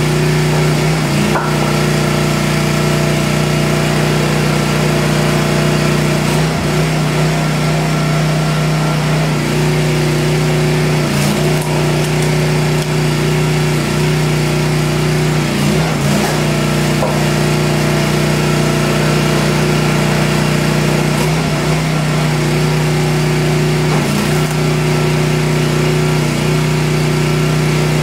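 Engine of a homemade 25-ton hydraulic log splitter running steadily. Every few seconds its note briefly dips and wavers, with short cracking noises, as the ram takes load and pushes the log through the wedge.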